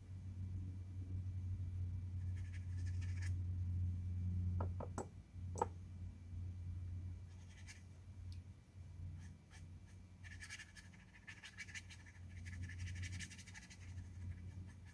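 Watercolour brush scrubbing paint onto rough watercolour paper in scratchy strokes that come in patches, over a steady low hum. A few small sharp clicks about five seconds in.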